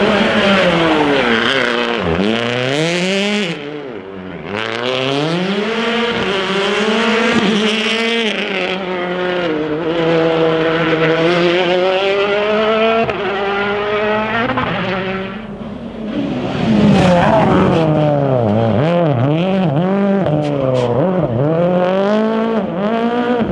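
Turbocharged four-cylinder World Rally Car engines (Hyundai i20 WRC and Ford Fiesta WRC) driven flat out, the engine note rising and falling over and over through quick gear changes and lifts for corners. It drops briefly twice, and there are sharp cracks near the end.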